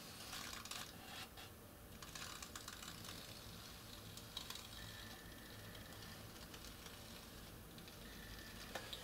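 Faint, irregular light clicking and ticking from a display turntable's mechanism as it turns the model, over a low steady hum.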